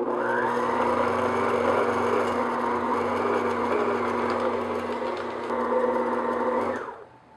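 Electric stand mixer's motor running steadily on low speed, its flat beater working a thick chocolate cake batter paste in a glass bowl; it is switched off near the end.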